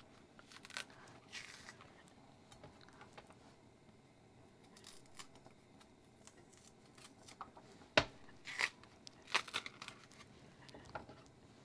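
Green plantain being peeled with a kitchen knife: faint, scattered scraping and tearing as the blade slides under the thick skin and the peel is pulled away, with a sharp click about eight seconds in and a few quick scrapes just after.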